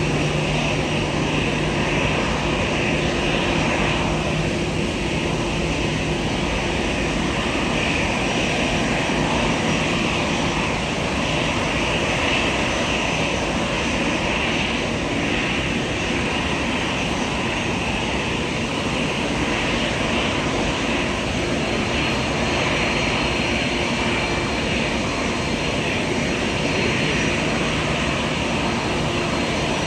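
Airliner engines running steadily: a continuous, even rush of engine noise with a high whine in it.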